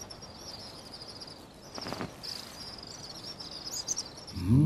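Insects trilling steadily in a high, even chorus, with one brief rustle about two seconds in. Background music comes in just before the end.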